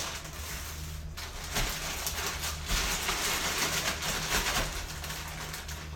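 Crinkling of a plastic bag of shredded mozzarella cheese as it is squeezed to loosen the shreds, in two rustling stretches over a steady low hum.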